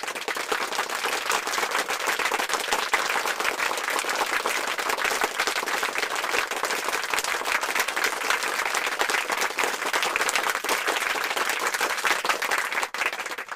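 A crowd applauding, dense and steady.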